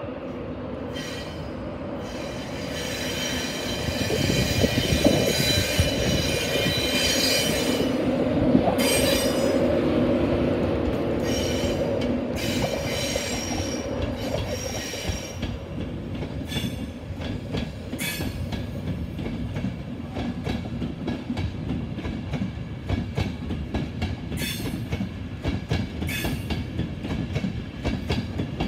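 An LNER InterCity 225 train, a Class 91 electric locomotive hauling Mark 4 coaches, rolling past with a rumble. High wheel squeal rings out for the first several seconds. Then comes a steady clickety-clack as the coaches' wheels pass over rail joints.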